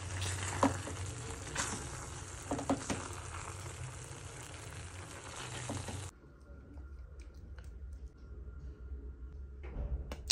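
Pasta in tomato sauce sizzling in a frying pan as it is stirred, with a few knocks and scrapes of the spatula against the pan. The sizzling cuts off suddenly about six seconds in, leaving quiet room tone.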